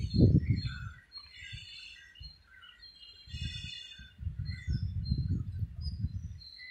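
Birds chirping and calling, with irregular bursts of low rumbling noise that are loudest in the first second.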